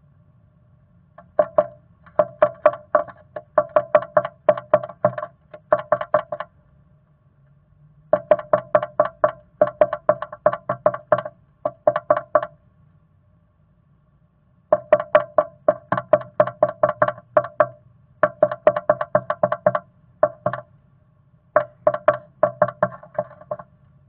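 Black-capped chickadee pecking at the wood inside a nest box: rapid sharp taps, about five or six a second, in four bouts of a few seconds each with short pauses between, the box's wooden walls giving each tap a hollow ring.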